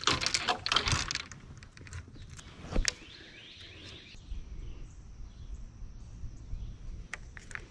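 Clicks and knocks of fishing rods and tackle being handled on a bass boat's deck, with a single sharp click about three seconds in, then a low steady rumble.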